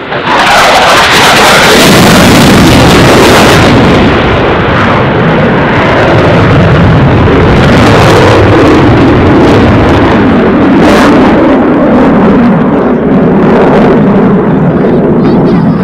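Loud jet noise from a Eurofighter Typhoon FGR4's twin EJ200 turbofans as the fighter passes close by. It comes in suddenly with a sharp hiss that fades after about four seconds, leaving a deep, steady roar as the jet climbs away.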